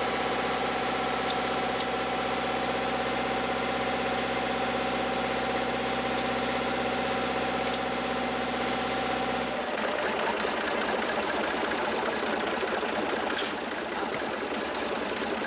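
Gazelle helicopter's Astazou turboshaft and rotor running, heard from inside the cockpit as a steady whine over a low hum. About ten seconds in it cuts abruptly to a rougher, hissing rush with the low hum gone.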